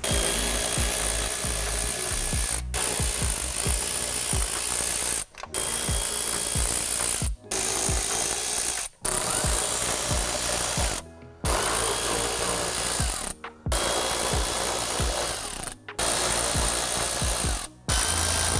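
Milwaukee cordless ratchet running in bursts of about two seconds, backing out the small bolts that hold a plastic valance, with brief breaks between bursts.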